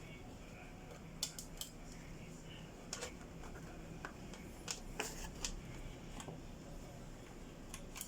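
Quiet, scattered sharp clicks and taps from handling a wired keyboard and mouse while their USB plugs are connected, coming in small clusters rather than a steady rhythm.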